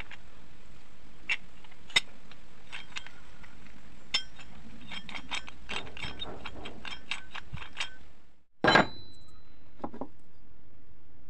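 Sharp metallic clicks and clinks as a rusty motorcycle chain sprocket on a steel tube is turned by hand, quickening to several a second. Near the end there is one loud clank with a short metallic ring as a sprocket lands on wooden boards, then a softer knock.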